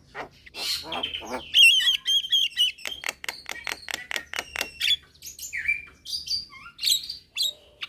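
Javan mynas chattering: a fast run of sharp clicks and harsh squawks mixed with a quick warbling trill and short whistled notes.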